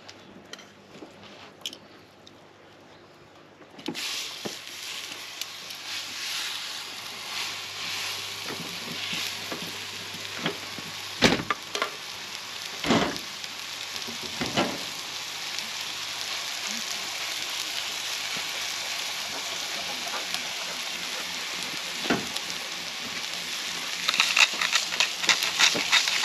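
Brisket frying on a hot gas griddle plate. The sizzle starts suddenly about four seconds in as the meat goes on, with a few sharp knocks along the way, and it grows louder and more crackly near the end.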